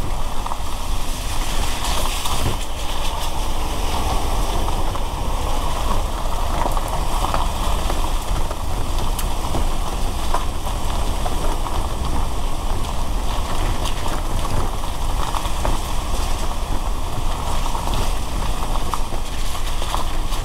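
A car driving in the rain: steady low rumble of the engine and tyres on a wet road, under a constant hiss of rain and spray, with a few sharp ticks scattered through.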